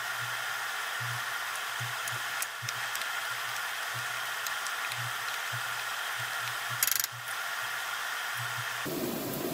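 Minced garlic sizzling in olive oil in a nonstick frying pan: a steady frying hiss, with a brief clatter of the wooden spatula about seven seconds in.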